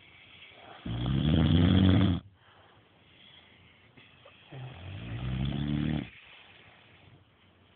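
A sleeping man snoring: two long snores, a loud one about a second in and a second one near the middle that rises in pitch, with quiet breathing between them.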